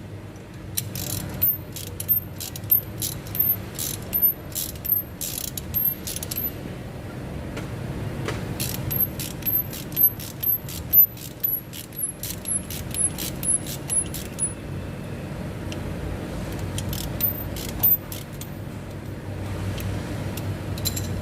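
Ratchet wrench clicking in short back-and-forth strokes as a glow plug is threaded into a diesel cylinder head, in two runs of a few clicks a second with a pause between, then scattered clicks near the end.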